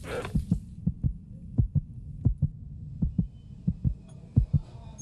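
Heartbeat sound effect: a steady pair of low thumps about every 0.7 seconds. A hiss of running shower water fades out in the first second.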